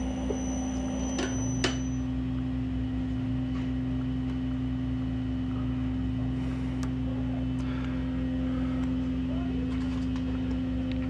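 Steady electric hum of a running metal lathe's motor, with a couple of light metal clicks about a second or two in.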